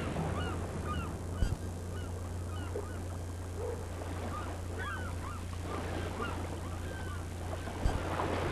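Waterfowl calling: many short, scattered calls over a steady low hum.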